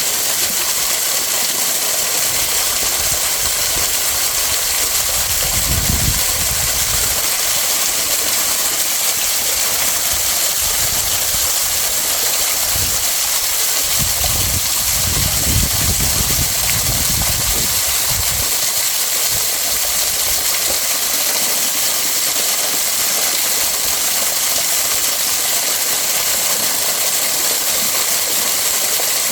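Waterfall: a steady, loud rush of falling water, with a couple of brief low rumbles, one about six seconds in and a longer one around the middle.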